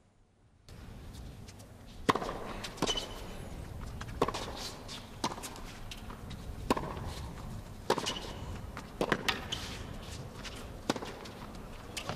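Tennis rally on a hard court: about seven sharp strikes of racket on ball, roughly a second or more apart, beginning about two seconds in, over a quiet arena.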